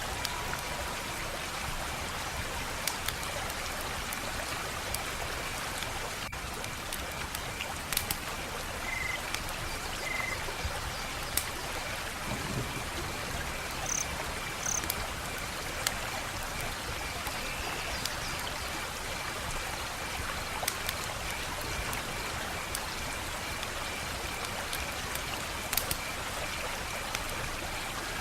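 Wood fire crackling: a steady hiss with irregular sharp pops and snaps.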